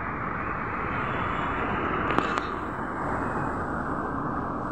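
Steady outdoor background noise, a dense rushing hiss with no clear tone, broken by two sharp clicks a couple of seconds in.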